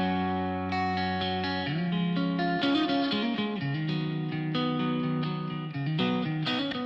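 Background music led by guitar, fading out near the end.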